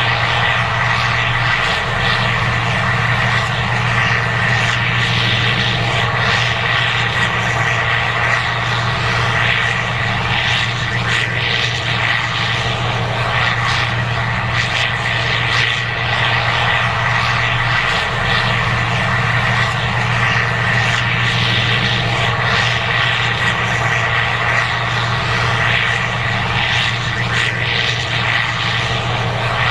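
Case IH 2188 Axial-Flow combine running steadily while harvesting corn: an even engine drone with a steady high whine on top.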